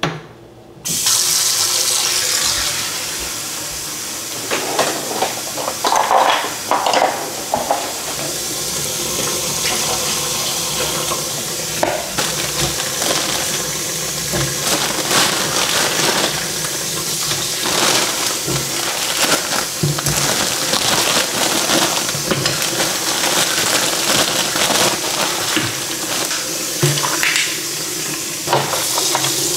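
Kitchen faucet turned on about a second in, water running steadily into a stainless steel sink as it fills, with occasional knocks and splashes as fruit and vegetables are dropped into the water.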